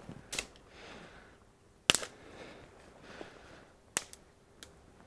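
Branches of a fallen sapling snapping with sharp cracks as they are broken off by hand, four cracks in all, the loudest about two seconds in, with brush rustling between them.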